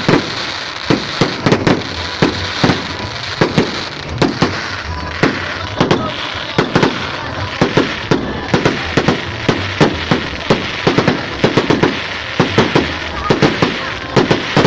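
Fireworks going off in quick, irregular succession, several sharp bangs a second over a constant crackling background.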